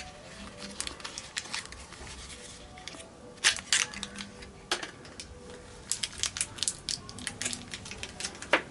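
A new ball bearing being unpacked from its small cardboard box and clear plastic wrapping: crinkling and rustling with many sharp clicks and snaps, the loudest about three and a half seconds in and near the end, and a quick cluster of them a little after the middle.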